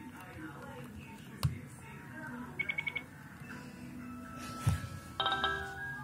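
Nokia 6070 ringtones playing through the phone's small loudspeaker. A quick run of five short high beeps sounds a little before halfway, a couple of sharp clicks come from the keys being pressed, and a new ringtone starts with a bright chord about five seconds in.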